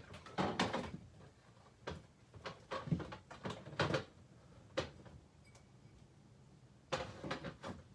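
Rummaging in an open refrigerator: irregular knocks and rattles of containers being moved on the shelves, with a short quiet spell before a last cluster near the end.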